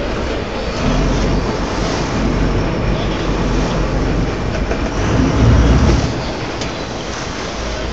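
Steady rumbling noise aboard a boat at sea: wind buffeting the phone's microphone over the drone of the boat's engine, swelling louder about five seconds in.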